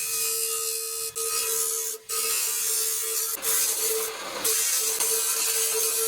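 Rasping and scraping of iron being shaped into a knife blade, over a steady machine hum. It breaks off briefly about one and two seconds in and turns harsher after about three and a half seconds.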